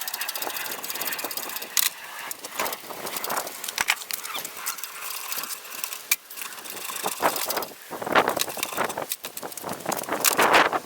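Irregular clinks, knocks and scrapes of hand tools and loose steel parts being worked and handled during disassembly.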